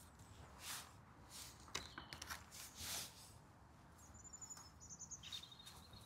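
Gloved hands scraping and pressing loose soil around onion seedlings, a few soft rustles in the first three seconds. A small bird sings quick high trills and chirps in the second half.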